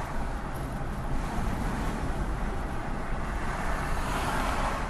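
Steady road and engine noise of a moving car, a low rumble that swells a little near the end.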